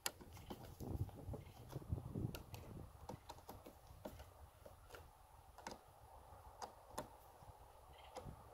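Phillips screwdriver tightening screws into a plastic mount clamp on a trolling motor shaft: a run of small, irregular clicks and ticks as the screws are snugged down. A low rumble sits under the first few seconds.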